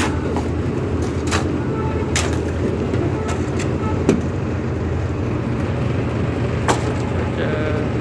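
A steady low engine drone, with sharp metal knocks and scrapes a few times from shovels working wet concrete over steel rebar.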